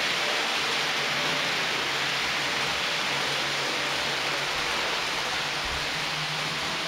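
Model passenger train rolling past on the layout's track: a steady rushing hiss of wheels on rail with a faint low hum underneath.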